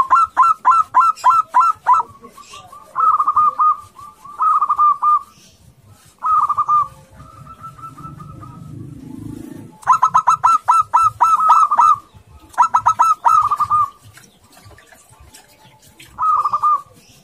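Zebra dove (perkutut) singing its staccato cooing song: about seven phrases of rapid, evenly repeated notes, each lasting half a second to two seconds, with short pauses between. The longest run comes about ten seconds in.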